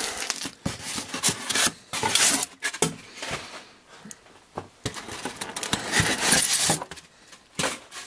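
Bubble wrap and cardboard packing rustling and crinkling as they are handled by hand during unpacking. The sound comes in irregular bursts of crackles and clicks, with brief lulls about four seconds in and again near seven seconds.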